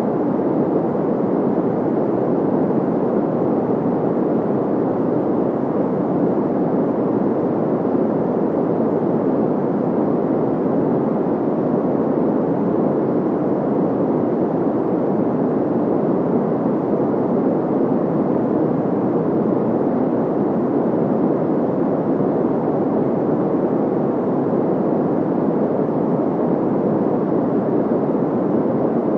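Generated white noise: a steady, unchanging hiss, deep and muffled, with most of its weight in the low and middle range and little treble.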